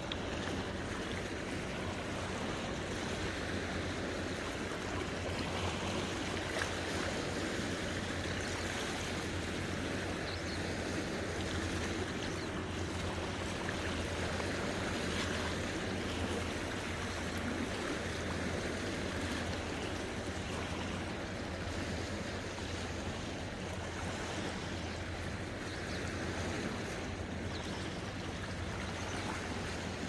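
Small sea waves washing and lapping over shore rocks: a steady, even wash of water with no single large breaker standing out. A steady low hum lies underneath.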